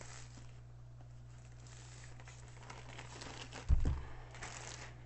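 Rolled diamond-painting canvas in its white wrapping, crinkling as it is handled. A single thump a little past the middle as the roll is laid down on the wooden table, followed by more crinkling.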